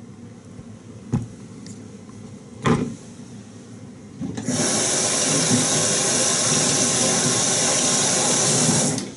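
Kitchen tap running into a stainless steel sink: it turns on about halfway through, runs steadily for about four and a half seconds, and shuts off just before the end. Two light knocks come before it.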